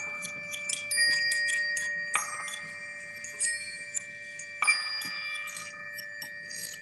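Music of struck chimes: a new ringing tone comes in about a second in, another just after two seconds and another near five seconds, each ringing on over the others, with light high tinkling throughout.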